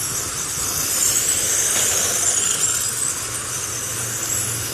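Several electric RC dirt oval cars with 17.5-turn brushless motors racing at speed, a steady high-pitched whine of motors and drivetrains over the hiss of tyres on the clay.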